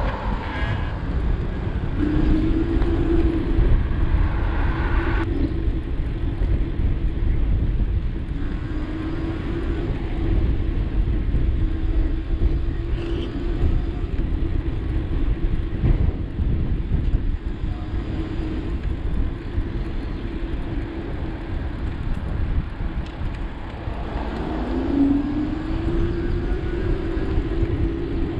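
Wind buffeting the microphone of a camera on a moving bicycle, a continuous low rumble. A steady hum comes in after a couple of seconds, wavers, and rises in pitch near the end.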